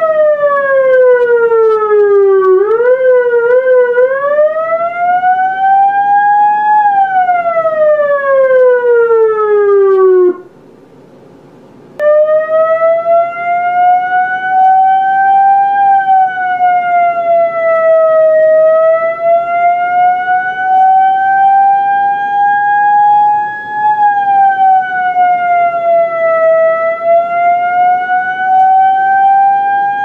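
GE 4EA12B10 police siren wailing. It falls, warbles briefly about three seconds in, then rises and falls again. It cuts out for under two seconds, then comes back as a slower wail that rises and falls about every eight seconds.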